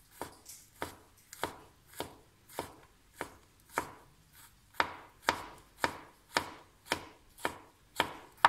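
Kitchen knife chopping mushroom stems finely on a wooden cutting board: the blade knocks against the board about twice a second, in a steady rhythm.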